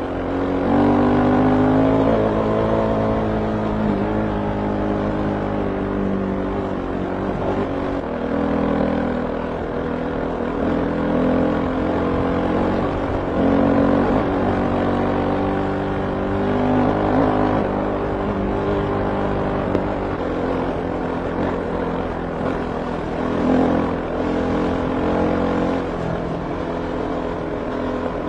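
Kove 450 Rally's single-cylinder engine running hard at speed, its pitch repeatedly climbing and dropping back as the throttle is opened and eased.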